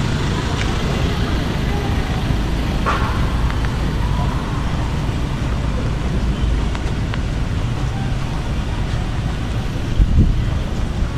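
Steady low rumble of road traffic, with a few light clicks and a brief thump about ten seconds in.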